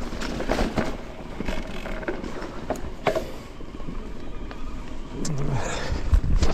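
Mountain bike rolling over rough, rocky trail: tyre rumble with rattles, knocks and clicks from the bike, and a couple of heavier thumps near the end.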